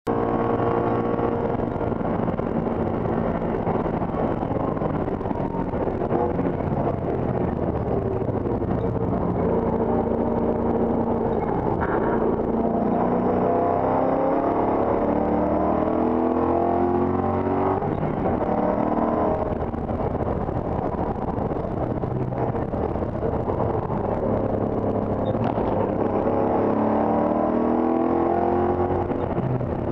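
Race car engine heard from inside the cabin at full effort. It holds high revs at speed, falls away under braking, then climbs repeatedly in pitch as the car accelerates out of the corners, with a drop in pitch between climbs.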